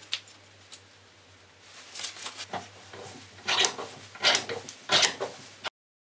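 Knife handle being clamped in a bench vise: a few light knocks, then a run of scraping strokes roughly two-thirds of a second apart that grow louder, the last three loudest. The sound cuts off abruptly shortly before the end.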